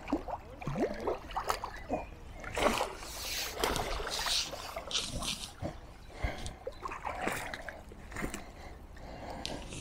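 A hooked fish splashing and thrashing at the surface as it is scooped into a landing net, with water sloshing and dripping around the net.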